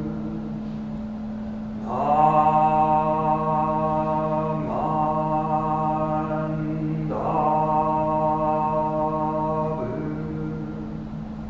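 A man's voice chanting Buddhist liturgy slowly, holding each syllable on one steady note. A new syllable begins about every two and a half seconds, four times.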